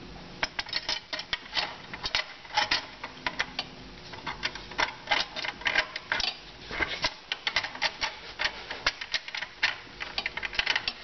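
Irregular light metallic clicks and taps as the oiled reverse band of a GM 440-T4 (4T60) automatic transmission is worked into the case and seated around its drum, metal knocking on metal.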